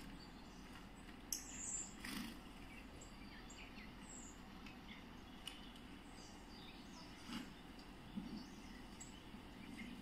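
Faint birdsong and scattered short chirps played through a tablet's speaker from a video of garden birds, with a few sharp clicks in between.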